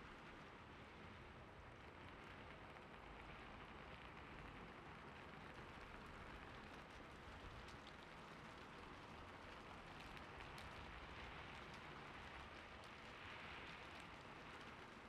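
Gentle rain ambience: a soft, steady hiss of rain, with a few faint light ticks scattered through it.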